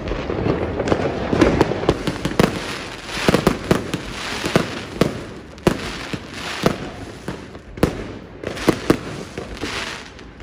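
Aerial fireworks going off: a dense, irregular run of sharp bangs and crackles, many overlapping, with no pause.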